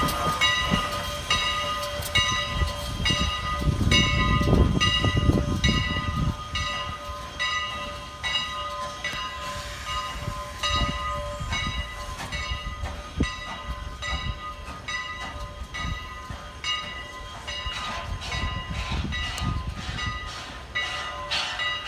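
A train rolling past, with a regular rhythm of wheel clicks at about two a second under several steady ringing tones. A low rumble of wind on the microphone comes about four seconds in.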